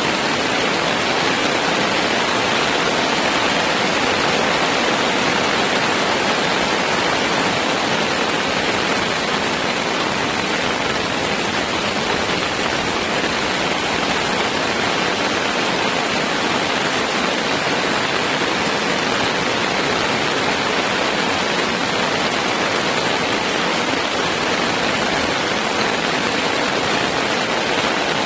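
Heavy rain falling steadily, a dense, even hiss that stays at the same level throughout.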